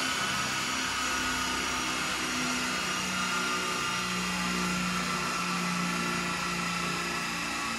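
Mercedes E220 CDI's four-cylinder diesel engine running with the car on a chassis dynamometer, its wheels turning the rollers: a steady whirring drone that drops slightly in pitch about three seconds in.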